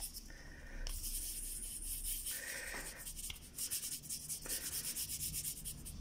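Fingers rubbing paint across a small sheet of paper in quick, repeated strokes, blending the sky from strong blue to light blue.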